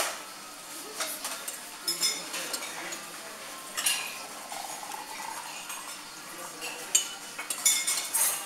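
Metal cutlery clinking and scraping against ceramic plates and a bowl as someone eats, with sharp clinks every second or so and a quick cluster of them near the end.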